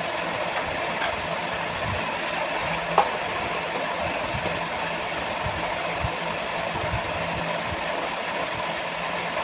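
Steady machine-like hum with a constant low tone, and one sharp click about three seconds in.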